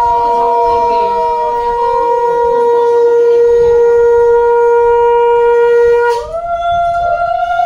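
Conch shells blown together in long, steady blasts at two pitches. A little after six seconds the lower blast stops and new blasts begin, each sliding up to its note.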